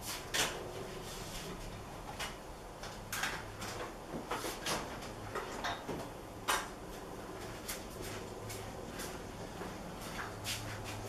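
Irregular clicks, clinks and knocks of hand tools and metal engine parts being handled on a workbench, as a circlip is worked off a transmission gear in a split two-stroke crankcase, over a faint steady hum.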